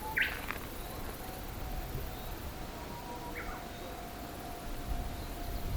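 Outdoor ambience with two short bird chirps, one right at the start and another about three seconds later, over a faint steady tone; a low rumble starts to swell near the end.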